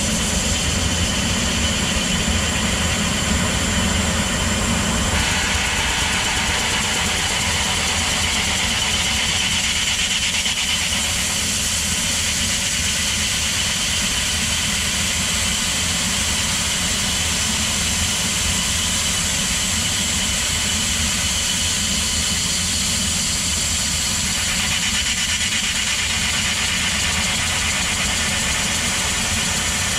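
Steady running of a mirror-processing machine, its spindle spinning the polished mirror blank while a blower runs, with a steady hiss over a low hum. The hiss grows louder a few seconds in and eases again a few seconds before the end.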